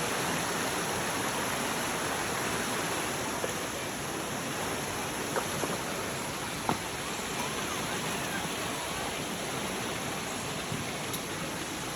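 Steady rushing of a waterfall, with a few faint short clicks about halfway through.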